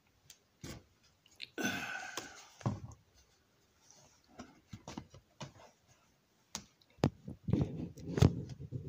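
Handling noise from a hand-built model railroad engine house being turned over in the hands: scattered light clicks and taps, and a brief rustle about two seconds in. A few dull knocks near the end as it is set down on the workbench.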